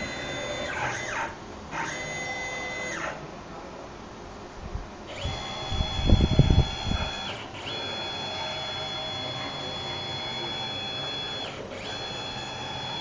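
Stepper motors of a mini CNC machine whining as the axes move: a few short moves in the first three seconds, then longer steady runs, each whine gliding up in pitch as it starts and down as it stops. About six seconds in, a loud low rumbling knock lasts roughly a second.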